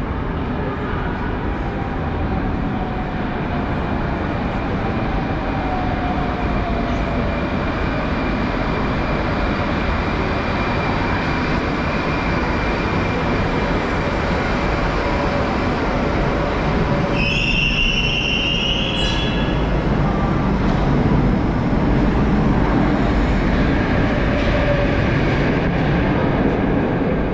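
81-760A metro train pulling into the platform and braking to a stop, a faint falling whine riding over the steady rumble. About two-thirds through, a short high-pitched electronic tone sounds.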